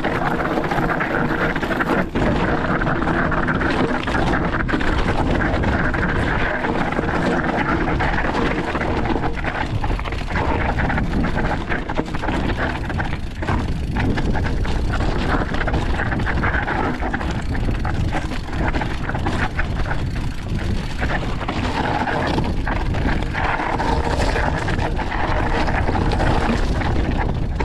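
Mountain bike riding over rough trail, with a steady rush of riding noise and constant fine rattling from the bike.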